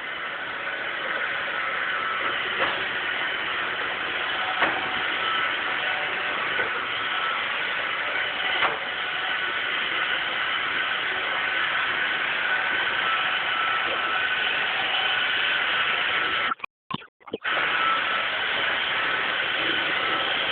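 Roomba robot vacuum running: a steady whirring hum of its motor and brushes, with a few faint clicks about two seconds apart. The sound drops out briefly for about a second near the end.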